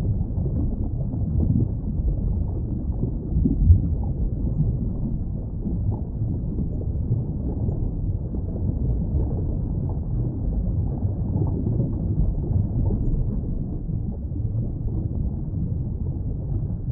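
A steady, low rumbling noise with no clear pitch, a little louder for a moment about four seconds in.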